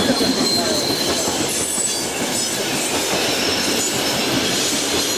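Intercity passenger coaches rolling past on curved track, a steady rumble of wheels on rail with a high, thin squeal from the wheels on the curve.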